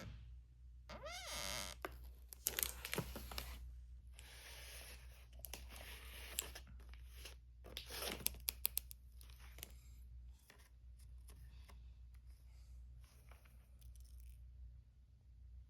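Handling noise: stretches of crinkling and scraping with sharp clicks, and a short warbling pitched sound about a second in.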